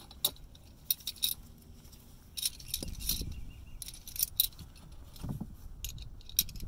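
Metal clinking and jangling of a three-jaw adjustable oil filter wrench being handled, in short clusters of light, sharp clicks with a few duller knocks.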